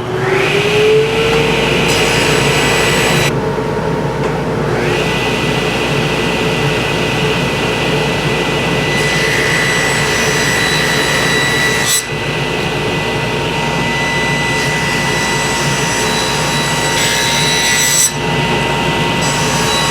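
Table saw motor spinning up, its whine rising to speed, then running steadily while ripping maple into thin 3/8-inch splines. The sound dips for an instant twice, about twelve and eighteen seconds in.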